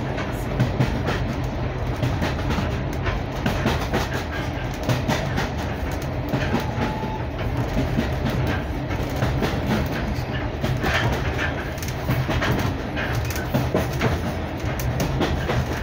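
Heritage railway passenger carriage in motion, heard from inside: a steady low rumble of the train running, with many sharp clicks as the wheels pass over the rail joints.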